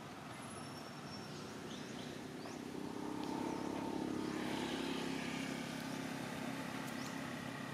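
A motor vehicle's engine passing on the road, growing louder about three seconds in and then slowly fading. Faint short high chirps are scattered throughout.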